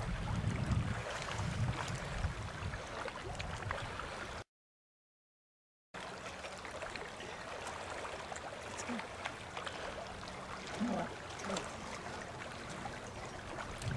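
Wind rumbling on the microphone over the sound of river water. The sound cuts out completely for about a second and a half a little before the middle, then a quieter, even hiss of water and wind carries on.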